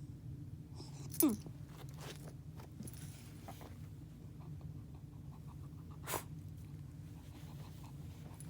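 A pet dog gives one short whine that falls steeply in pitch about a second in, then a single sharp click around six seconds, all over a steady low hum.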